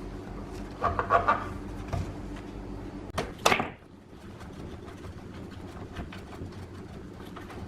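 Knocks and clatter of objects being handled, loudest a little after three seconds in, over a steady low hum.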